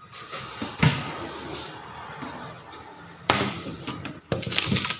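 A few sharp knocks and thuds in a small room: one about a second in, another past three seconds, and a quick cluster near the end, over steady room noise.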